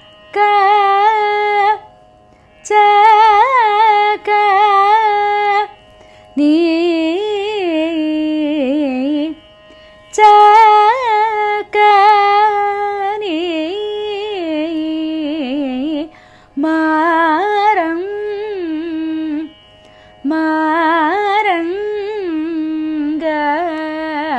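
A woman sings a Carnatic varnam in Panthuvarali raga, moving in phrases of a few seconds with wavering gamaka ornaments and short breaths between them. A steady drone sounds beneath the voice.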